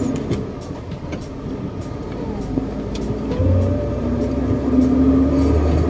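Ten-wheeler truck's diesel engine running, a low rumble that swells about three and a half seconds in, with scattered light clicks.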